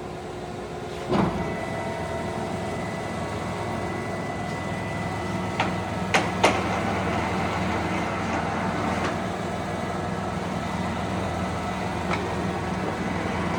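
American 16 by 54 engine lathe running with its power feed driving the carriage and cross slide together: a steady geared hum with a few steady whining tones. A knock about a second in, after which it runs louder, and a few short clicks around the middle.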